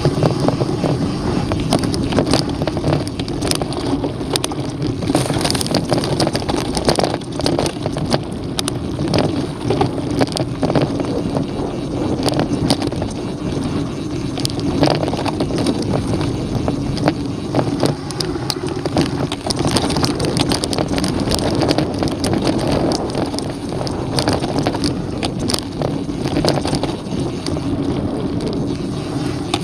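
Mountain bike riding a dirt trail: knobby tyres rolling over the dirt and the bike rattling with many sharp clicks over bumps, with wind buffeting the microphone.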